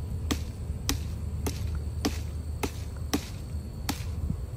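Seven sharp knocks at a steady pace, about one every half second or so, as a small child strikes at a young tree's trunk with something held in his hand, over a low steady rumble.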